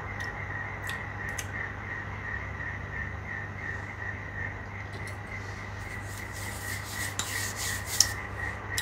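A steady low hum under a high chirp that pulses about three times a second. About six seconds in comes a short rustling, rubbing noise that ends in a sharp click near the end.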